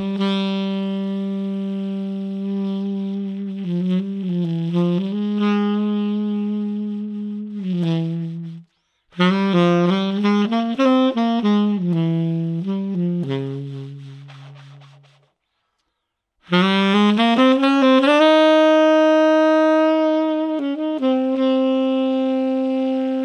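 Unaccompanied tenor saxophone played through a BetterSax Burnin' mouthpiece, in three slow phrases of long held notes and short runs. The second phrase ends on a low note that fades away, and after a short pause the third opens with an upward scoop into a held note.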